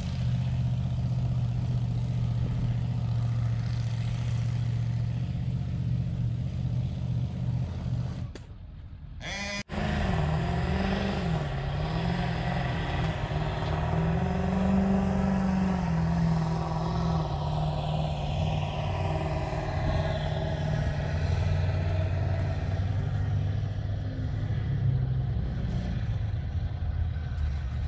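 Heavy engine of a pulling vehicle running hard, its pitch wavering up and down for a few seconds and then holding steady. The sound drops out briefly about eight seconds in.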